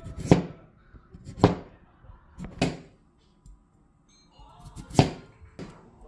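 Chef's knife slicing through carrot and knocking down onto a plastic cutting board: three sharp knocks about a second apart, a short pause, then another knock with a lighter one just after.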